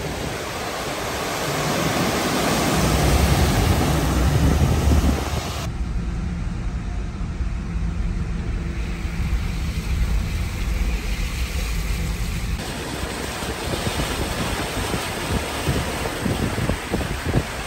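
Cars driving through floodwater: a steady noise of tyres and water with a low rumble early on, and wind buffeting the microphone in the later part. The sound changes abruptly twice, about six and about twelve and a half seconds in.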